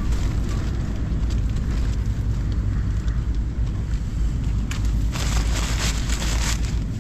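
Strong wind buffeting the microphone and the ice-fishing tent: a steady low rumble, with a louder rustle of tent fabric and clothing for a second or two near the end.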